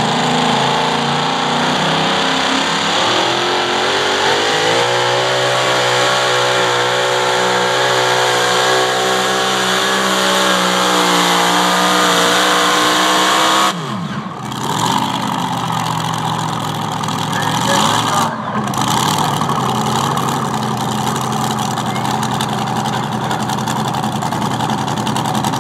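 Pro Modified pulling tractor's supercharged engine at full throttle through a pull, its pitch climbing steadily. The sound drops off abruptly about 14 seconds in, and the engine then runs lower and unevenly.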